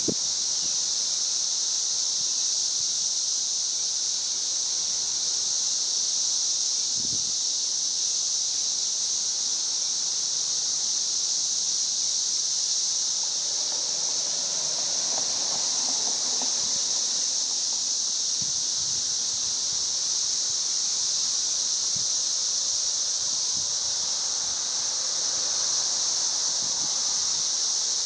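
Chorus of 13-year periodical cicadas: a steady, high-pitched drone that holds at one level without a break.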